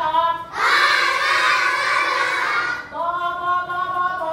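Call-and-response reading drill: a woman's single voice chants a syllable in a sing-song pitch, a whole class of young children chant it back loudly in unison, then she chants the next one. This is a choral spelling-out drill (Thai แจกลูกสะกดคำ), the children sounding out and reading the syllable together.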